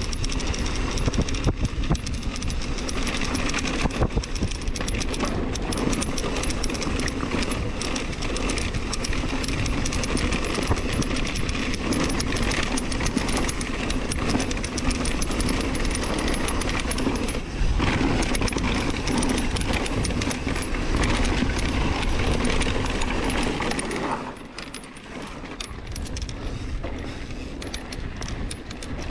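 Mountain bike ridden over a rough dirt trail: continuous rattling and clattering of the bike with tyre noise and a low rumble, getting quieter about 24 seconds in.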